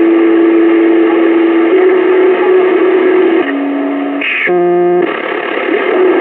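CB radio receiver audio between transmissions: static with steady heterodyne tones from overlapping stations that step down in pitch. About four and a half seconds in, a short buzzy tone sounds, like a keyed-up station's beep.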